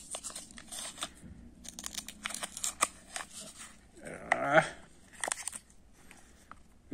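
Close-up crinkling, rustling and small clicks of a paper spoon and a thin plastic Kinder Joy cup being handled as the spoon scoops into the cream, with a brief voiced sound about four seconds in.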